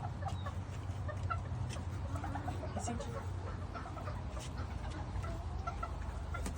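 Chickens clucking, short soft calls scattered throughout, over a steady low hum.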